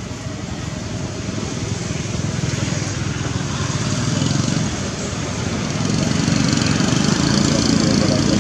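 Steady low rumbling noise with no distinct events, growing louder about six seconds in.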